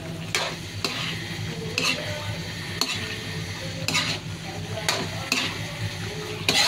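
Metal ladle stirring chicken, potatoes and carrots in a thick sauce in a pan, scraping and knocking against the pan about eight times at uneven intervals, over a steady sizzle from the pan.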